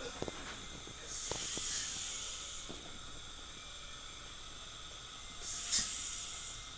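Two bursts of hissing from dental equipment in the operatory, about a second in and again near the end, with a few light clicks of metal instruments at the start.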